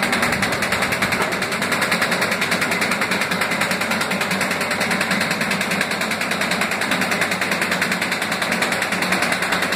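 Automatic paper bag and envelope making machine running: a fast, even mechanical clatter of several strokes a second that keeps a steady pace.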